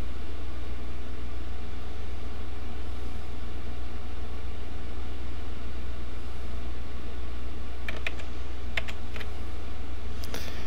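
Steady low electrical hum from the recording setup, with a few quick computer keyboard clicks about eight seconds in and again near the end.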